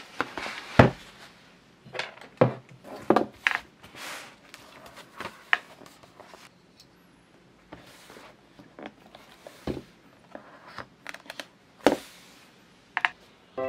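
A sketchbook handled on a desk: pages flipped by hand with paper swishing and rustling, and irregular knocks as the book is set down and moved on the tabletop.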